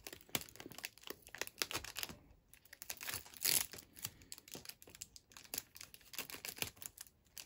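Clear plastic wrapping crinkling and rustling as fingers pick at it and peel tape off, in quick irregular crackles, loudest about three and a half seconds in.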